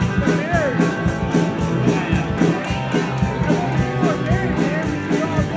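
Rock band playing the instrumental opening of a song, with guitar over a steady beat and a pitched lead line bending up and down.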